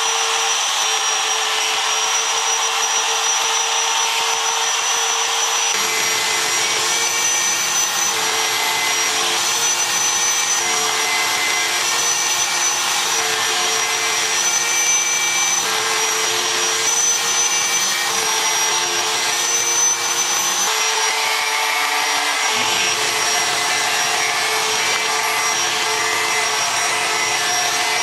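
A CNC machine's router spindle cutting slots in plywood, with a steady high whine that dips slightly in pitch now and then as the bit takes the cut. A shop vacuum runs alongside, drawing off the dust.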